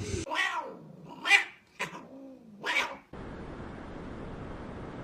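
Domestic cat meowing three times in the first three seconds, each call rising and then falling in pitch, followed by a steady faint hiss.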